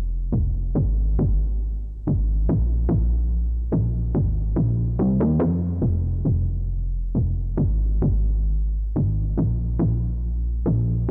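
Behringer Odyssey analog synthesizer playing a line of short plucked notes that each die away quickly, over a low held bass that steps to new pitches every second or so.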